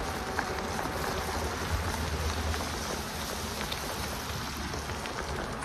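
An e-bike riding along a wet tarmac path in the rain: a steady hiss of tyres on the wet surface mixed with rain and wind, with the electric motor's faint whir at first.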